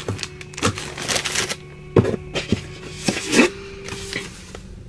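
Clear plastic packaging rustling and crinkling as it is handled, with several sharp clicks and knocks; it goes quieter for the last second or so.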